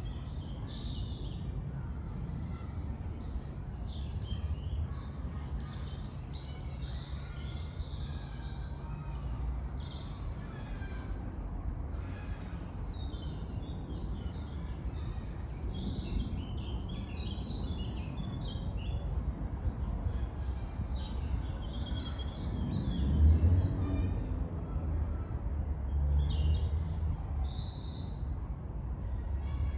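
Several small songbirds chirping and trilling throughout, over a steady low rumble of distant traffic that swells briefly about two-thirds of the way through.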